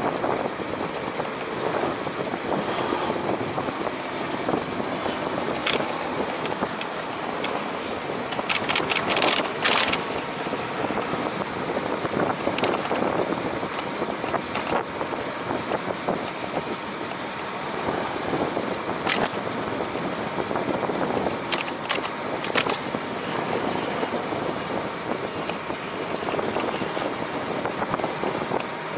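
Steady rush of wind and tyre noise from a bicycle being ridden, with scattered sharp clicks and rattles, several in a row about nine to ten seconds in.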